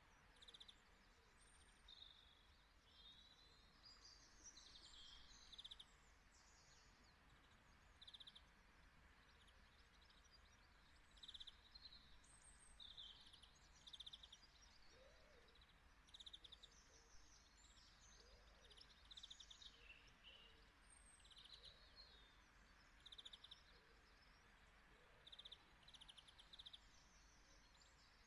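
Faint outdoor birdsong: small birds chirping and trilling again and again over a steady low hiss.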